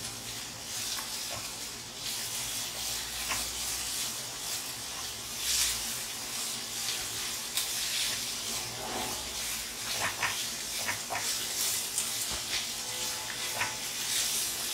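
Chopped vegetables sizzling in hot oil in a steel wok as they are stir-fried. A wooden spatula scrapes and taps against the wok now and then.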